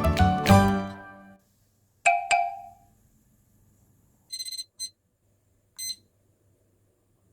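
Background music fading out, then two short chime-like notes, followed by a quick run of high electronic beeps and one more single beep a second later.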